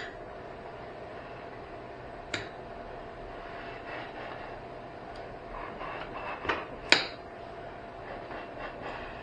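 A few sharp clicks and knocks of hand tools and metal parts as an old battery charger is dismantled. One comes about two seconds in, then a cluster near seven seconds, the loudest of them. Under them runs a steady low hum.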